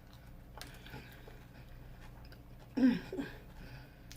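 A person chewing a crunchy Flamin' Hot Cheeto–breaded fried pickle, with a few faint crunches and a short hum of the voice about three seconds in.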